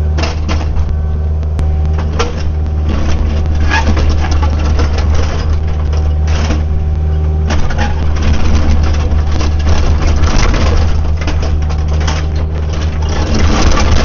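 Kubota U55-4 mini excavator's diesel engine running steadily while it works, with frequent knocks and scrapes of the bucket against rock and dirt.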